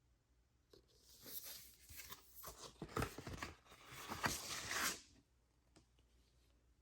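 Vinyl record packaging handled by hand: a rustling, tearing sound for about four seconds, with a few sharp knocks, stopping suddenly near the end.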